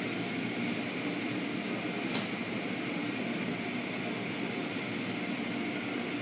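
Automatic tunnel car wash running, heard from inside a car: a steady wash of water spray, spinning cloth brushes and machinery hum. A single sharp click comes about two seconds in.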